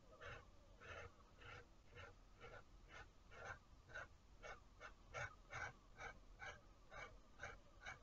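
Ink pen scratching across paper in short hatching strokes, about two a second, faint.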